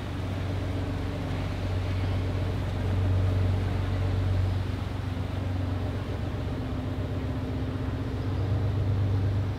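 Boat engine running steadily with a low hum, swelling a little twice.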